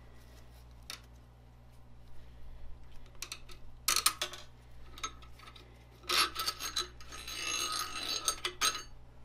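Metallic clicks and clinks as a 16 mm ball screw is handled in and out of its ball nut by hand: a few single clicks, a loud clatter about four seconds in, then a longer ringing rattle of metal on metal from about six seconds until near the end.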